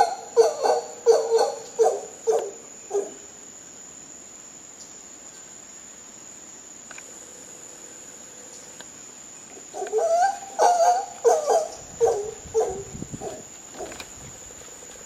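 Mantled howler monkey giving a rapid series of short deep calls, about three a second, that die away within the first three seconds; a second series starts about ten seconds in and fades out again. A steady high insect drone runs underneath.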